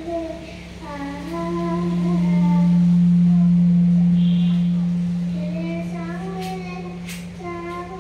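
A small girl singing into a microphone, her phrases wavering in pitch. Between the phrases, a steady low hum on one pitch swells up, is loudest in the middle, and fades back down.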